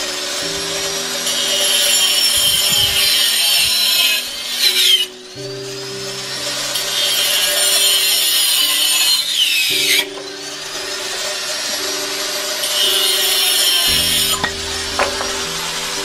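Angle grinder cutting through a green bamboo pole: the disc spins up with a rising whine, bites into the wood, and winds down, three times over, stopping about four, ten and fourteen and a half seconds in.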